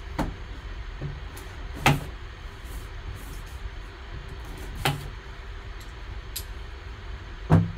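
Sharp knocks and taps as a sealed cardboard card box and a folding knife are handled on a tabletop while the box is opened: four short knocks, the loudest about two seconds in and near the end, over a low steady hum.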